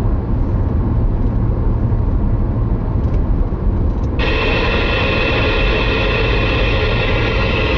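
Steady road and tyre rumble inside a moving car's cabin. About four seconds in, a CB radio's loudspeaker abruptly opens up with a steady rush of FM static over it.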